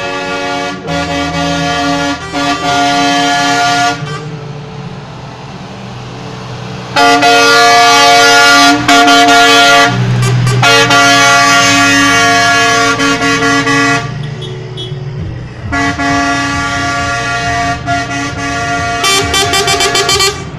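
Truck air horns sounding in several long, loud blasts as semi-tractors drive past, with diesel engines running underneath. Near the end a horn gives a quick run of short toots.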